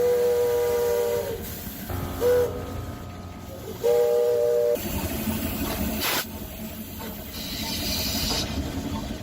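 Steam locomotive whistle blowing three times, long, short, then long, each blast a chord of more than one note, over a steady hiss of steam.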